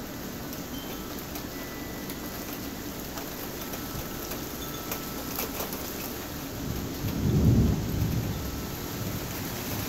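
Steady rain falling, with a low rumble of thunder swelling about seven seconds in and fading over a second or so.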